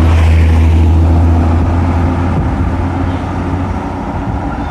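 A vehicle engine running close by with a steady low hum, loudest in the first two seconds and then easing off a little.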